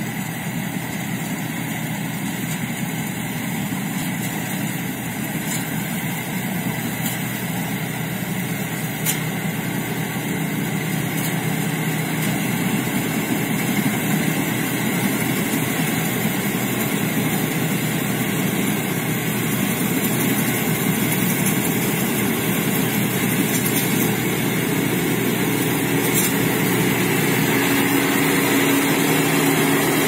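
Rice combine harvester's engine and threshing machinery running steadily as it cuts rice, growing gradually louder as it comes closer.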